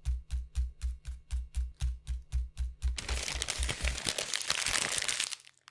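A steady beat of short low thumps, about four a second, for about three seconds. Then about two seconds of crumpled paper crinkling, which cuts off suddenly.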